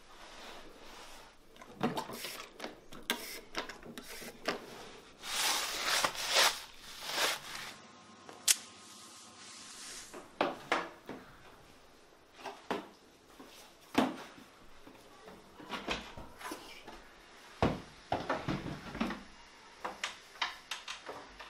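Scattered knocks, clicks and short rubbing noises of objects being handled, with a few longer scrubbing sounds about five to seven seconds in.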